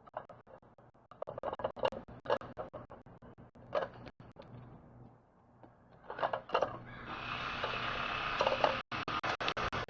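Northwestern crow making short, hiccup-like sounds in a few brief clusters, among many sharp clicks. About seven seconds in, a steady hiss runs for roughly two seconds and cuts off suddenly.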